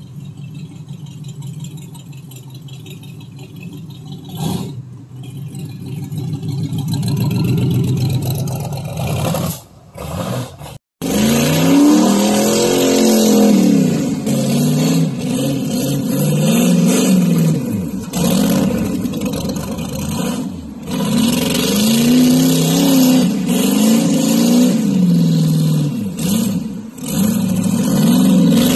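1934 Ford rat rod's engine running loud through its exhaust: a steady rumble at first, then, after a sudden break about eleven seconds in, revved up and down again and again as the truck spins donuts on grass.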